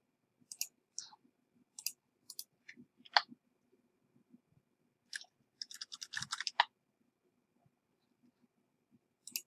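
Faint computer mouse clicks, one at a time, then a quick run of keyboard keystrokes about five to six and a half seconds in, as a password is typed at a terminal prompt.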